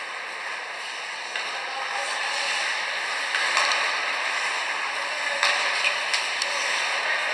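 Ice hockey rink noise during live play: a steady hiss of skates and arena crowd that grows louder, with a few sharp clacks of sticks and puck near the end.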